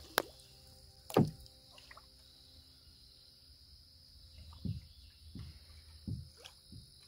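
Canoe paddle working the water: a sharp knock just after the start, a louder splash about a second in, then four softer splashes and drips, a bit under a second apart, in the second half. A faint steady high-pitched hum runs underneath.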